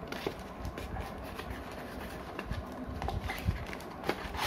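Scattered light clicks and ticks of a small toy package being handled, over a low background rumble.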